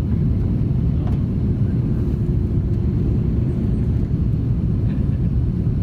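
Airbus A330-300 airliner heard from inside the cabin: a steady, loud low rumble of engines and airflow, with a faint steady hum running through it.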